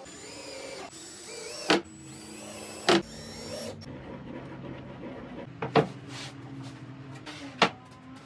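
Cordless drill/driver motor whirring in short runs with its pitch rising and falling, driving screws to fit caster wheels to a plywood base. Four sharp knocks come at roughly even gaps.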